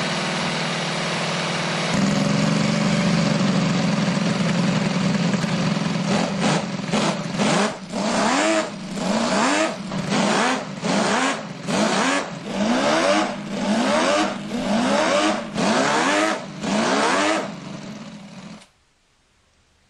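The 100cc fuel-injected flat-12 four-stroke engine of a hand-built scale model Ferrari 312 PB, running steadily and then revved in quick blips, about a dozen rises and falls roughly once a second. It dies away shortly before the end.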